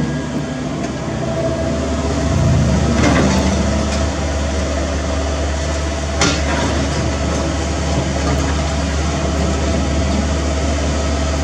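CAT 305E2 mini excavator's diesel engine running steadily under working load, with a steady higher tone over it. Debris clatters out of the bucket into the dump truck's steel bed, with a rough burst of knocks about three seconds in and a sharp knock of the bucket on rubble about six seconds in.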